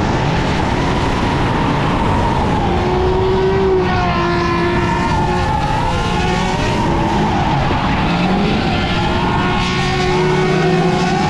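Several drift cars sliding through a corner one after another, their engines revving up and down over each other with tyres squealing.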